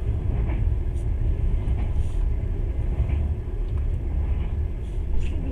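Steady low rumble of a train running along the track, heard from inside the passenger carriage, with a few faint ticks.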